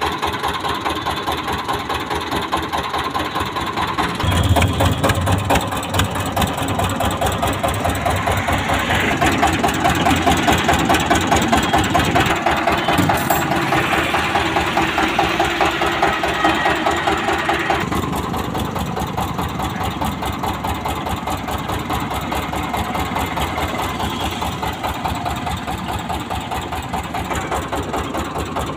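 Small stationary diesel engine driving a roller sugarcane crusher, running with a fast, even chugging. The sound grows heavier and fuller from about four seconds in and settles back at about eighteen seconds.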